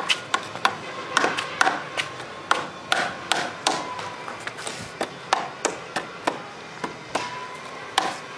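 Hammer driving nails into a wooden box: a steady run of sharp strikes, about two or three a second, some harder than others.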